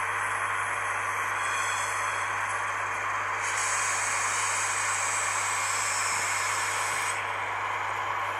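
Sound decoder of a PIKO SM42 model diesel locomotive playing its engine-running sound through the model's small speaker as the train rolls. A steady hiss comes in about three and a half seconds in and cuts off suddenly about seven seconds in.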